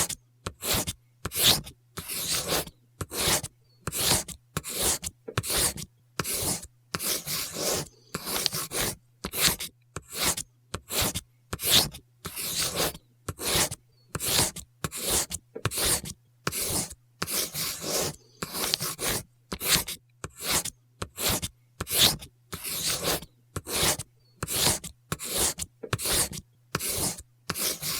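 Pencil drawing line after line on paper: short scratchy strokes, about one and a half a second, each followed by a brief silence.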